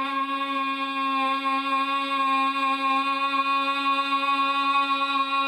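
A woman's voice holding one long, open-mouthed tone at a steady pitch with the tongue stuck out: the lion-like sound of simhagarjanasana (lion pose).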